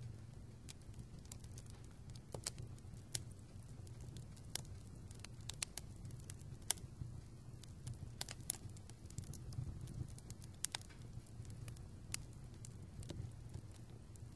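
Wood fire burning: irregular sharp pops and crackles, a few a second, over a low steady rumble of the flames.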